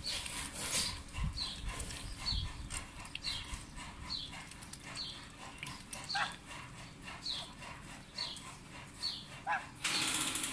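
A sparrow chirping repeatedly: short, high, falling chirps about one or two a second. Under them, scattered clicks and dabbling of duck bills in a metal food bowl. A short, louder rushing burst comes near the end.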